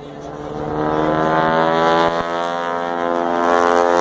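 Propeller engine of a red aerobatic plane running hard through its manoeuvres, a steady droning note that grows louder over the first second and a half as the plane comes nearer, its pitch bending slightly.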